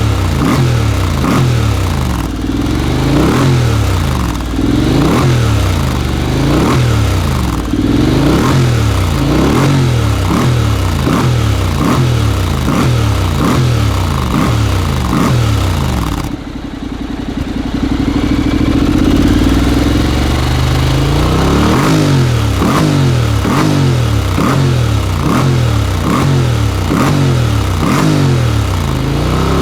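Honda X-ADV's 745 cc parallel-twin engine through a titanium slip-on muffler, revved over and over in quick throttle blips that rise and fall less than a second apart. About sixteen seconds in it drops back to a steadier, lower note for a few seconds before the revving picks up again.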